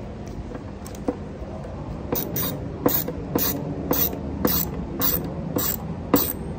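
Hand screwdriver driving a wood screw through a metal pipe floor flange into a soft wood board: from about two seconds in, a sharp click with each turn of the handle, about two a second.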